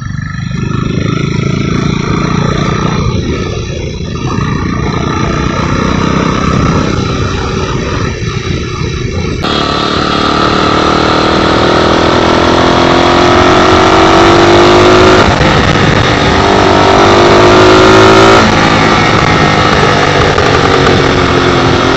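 Custom chopper motorcycle's engine running while riding. About halfway through, the sound turns suddenly brighter and louder, and the engine note then rises and falls with the throttle.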